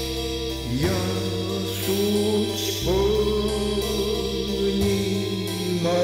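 Slow background music: long held notes over a steady low bass, the melody sliding up into a new note about a second in and again near three seconds.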